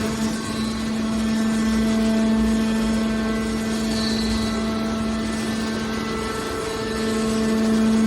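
Hydraulic baler's power unit running: a steady mechanical hum with an even whine over a low rumble.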